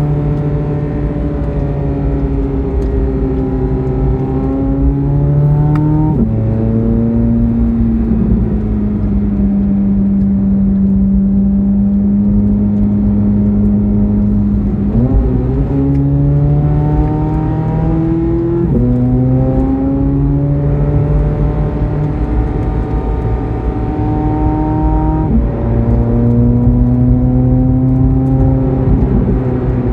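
Corvette C8 Z06's 5.5-litre flat-plane-crank V8 running under load, its pitch climbing and falling with sudden steps at gear changes about six, fifteen, nineteen and twenty-five seconds in, and holding nearly steady in between.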